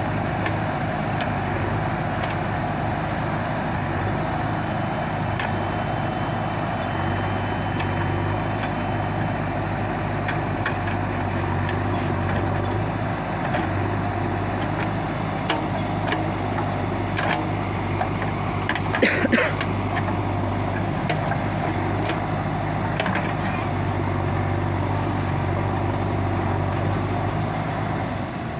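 JCB 3DX backhoe loader's diesel engine running steadily while the backhoe works the soil. Short knocks come now and then, with a brief loud clatter about two-thirds of the way through.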